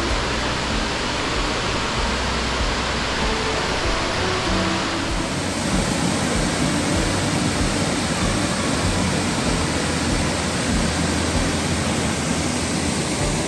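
Waterfall rushing, a loud, steady wash of falling water, with background music faintly beneath it.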